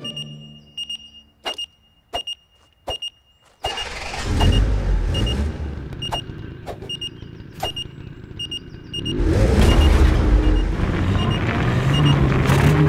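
Repeating high electronic beeps of a distress signal with a few sharp clicks, then a vehicle's engine rumbling in from about four seconds, louder about nine seconds in.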